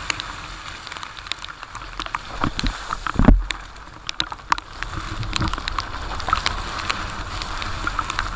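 Rain falling steadily, with scattered sharp ticks and one loud thump a little over three seconds in.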